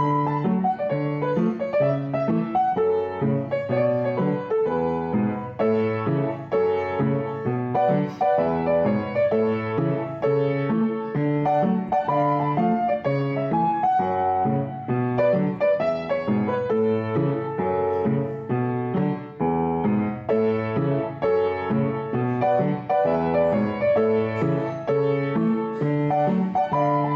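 Background piano music, a steady run of notes throughout.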